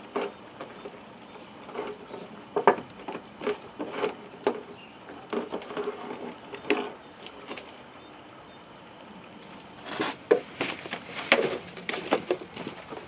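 Flat-coated retriever puppies nursing from their mother: scattered soft smacks and clicks, with a quieter stretch partway through and a denser run of clicks near the end.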